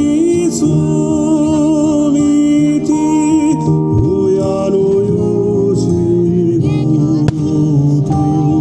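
A song with a singing voice over plucked strings, played as the music for a fireworks display, with one sharp crack about seven seconds in.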